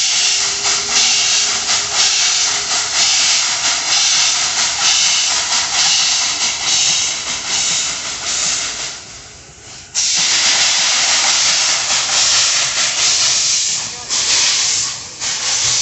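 Small steam locomotive, Poway-Midland Railroad No. 3, venting steam with a loud, steady hiss. The hiss drops away for about a second, comes back abruptly around ten seconds in, and dips again briefly near the end.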